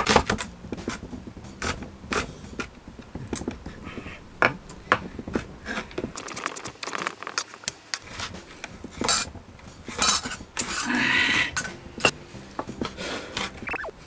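Kitchen knife mincing onion on a wooden cutting board: irregular taps and knocks of the blade against the board, with a longer rasping stretch about eleven seconds in.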